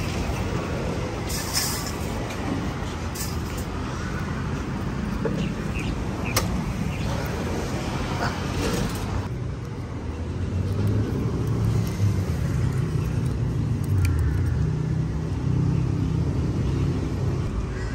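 Street ambience with a steady low traffic rumble and a few scattered clicks and knocks; the higher sounds drop away about nine seconds in, leaving mostly the rumble.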